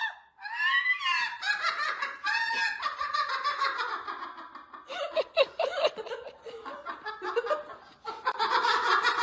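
People laughing, in broken, choppy bursts.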